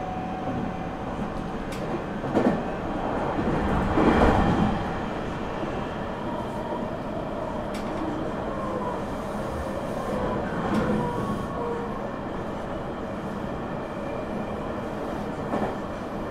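Interior running sound of a Meitetsu 9500 series electric train: a steady rumble of wheels on rail, with a couple of knocks and a louder rattle about four seconds in.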